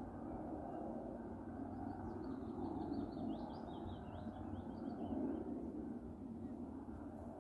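A small songbird sings a rapid run of short high chirps lasting about three seconds, starting some two seconds in, over a steady low outdoor background noise.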